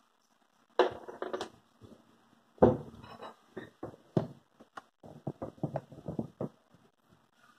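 Irregular clicks and knocks: a cluster about a second in, a louder knock a little before the middle, then a run of quick taps.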